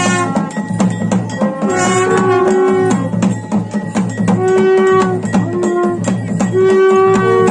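Traditional-style music: a melody of long held notes played over fast, steady drumming.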